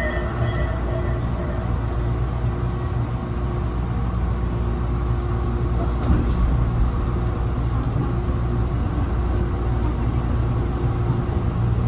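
Electric commuter train running along the track, heard from just behind the driver's cab: a steady rumble of wheels and motors with a faint steady hum.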